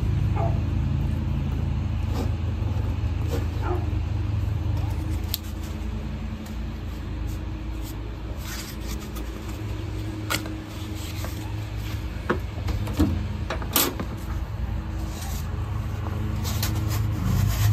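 A steady low rumble that eases off about five seconds in. Over it come scattered clicks and knocks of small packing pieces and fittings being handled during a window air conditioner install, most of them in the second half.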